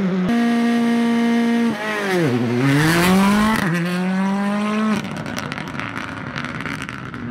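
Rally car engine held at steady high revs, then the revs drop sharply about two seconds in as it slows for a corner and climb again as it accelerates away. After about five seconds it gives way to quieter, more distant engine noise.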